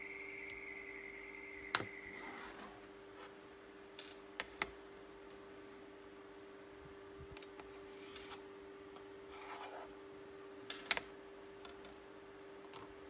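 Light clicks and taps of a steel rule and a pencil being laid down, shifted and picked up on an MDF board on a cutting mat, the sharpest two about two seconds in and near the end, over a steady low hum. A faint high whine fades out about two seconds in.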